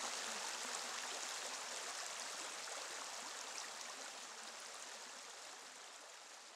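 Steady rush of running water, fading out slowly.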